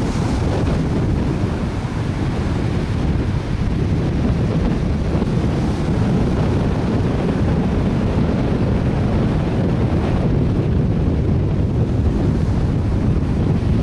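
Wind buffeting the microphone with a steady low rumble, over surf breaking on a sandy beach.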